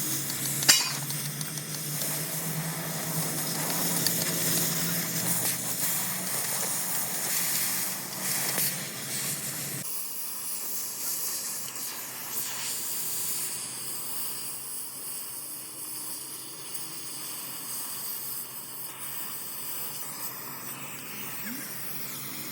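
Gas cutting torch hissing steadily, with a low hum under it that stops abruptly about ten seconds in.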